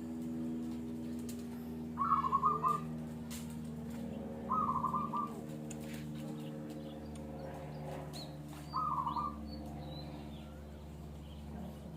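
A bird calling: a short, rapid trilled call, given three times a few seconds apart, over a steady low hum.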